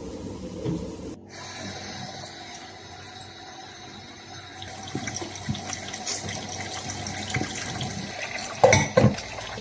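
Water running, with small clicks and a couple of louder knocks near the end.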